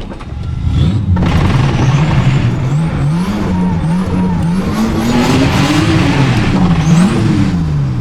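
Nissan Laurel's engine revving as the car pulls away in second gear on ice, the revs rising and falling several times and peaking about three-quarters of the way through before dropping off. The car has knocking in the transmission that comes out on take-off.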